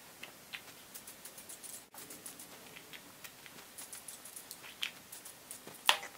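Aerosol spray can of clear coat spraying in short hissing bursts, with faint clicks and taps, and a sharper knock near the end as the can is set down on the table.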